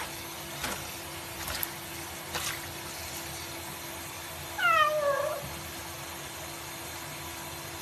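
A cat meows once about halfway through, a single call falling in pitch, over the steady rush of a tap running into a water-filled sink.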